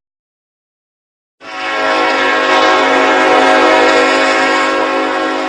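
A train horn sounding one long, steady blast, starting about a second and a half in.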